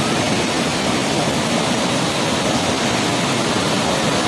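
Waterfall rushing: a steady, loud wash of falling water with no breaks.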